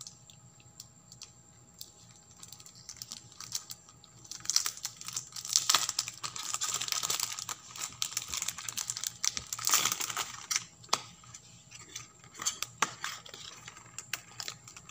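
Clear plastic wrap on a perfume box being torn and crinkled as the box is unwrapped, with scattered clicks and taps of fingers on the cardboard. It is sparse for the first few seconds, dense crinkling for about five seconds in the middle, then occasional taps.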